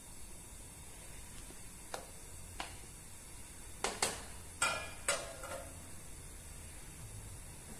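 Kitchenware clinking and knocking: two light clicks, then a cluster of four sharper knocks about four to five seconds in, one with a brief metallic ring, over a steady low hiss.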